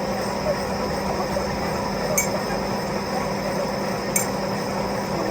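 Lathe running with a steady hum, and two sharp metallic clinks about two seconds apart.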